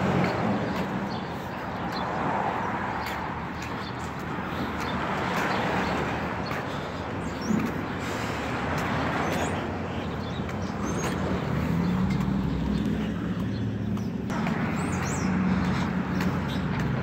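Engine of a shuttle bus idling at the curb close by, a steady low hum, with street traffic running past.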